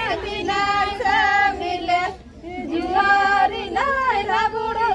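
A group of young women singing a Santali folk song together, with long held notes. The singing breaks off briefly a little over two seconds in, then resumes.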